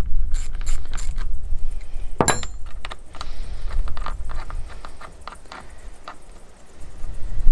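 Ratchet socket wrench clicking a few times on a chainsaw carburettor nut, then one sharp metallic clank with a short ring as the ratchet is put down. Light clicks of small metal parts being handled follow, over wind rumble on the microphone.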